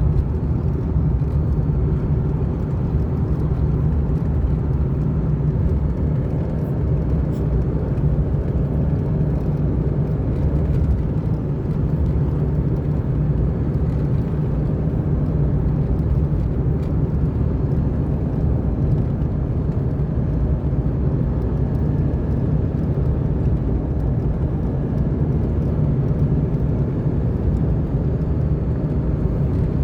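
Steady engine and road noise of a car driving along, heard from inside the cabin: a constant low rumble with no change in speed.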